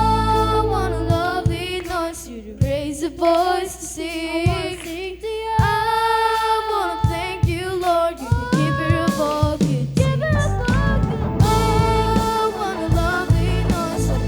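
A children's choir singing an upbeat praise song over a backing track with bass and drums. The accompaniment thins to mostly voices for several seconds in the middle, and the full band comes back near the end.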